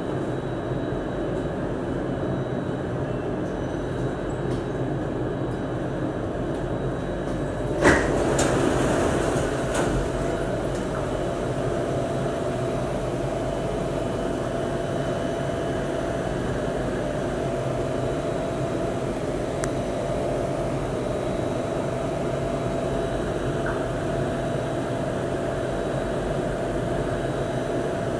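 Steady hum of a metro train car stopped at a station. About eight seconds in, a sharp clunk and a couple of seconds of rushing noise as the car's doors slide open, then the steady hum runs on.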